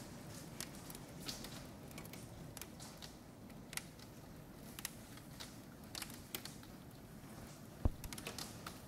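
Hail falling: a steady hiss of small hailstones with scattered sharp clicks of individual stones striking hard surfaces, and one louder thump near the end.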